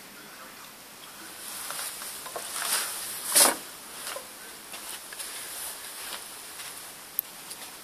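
Soft scuffing and brushing sounds in snow, with one louder swish about three and a half seconds in; no calls.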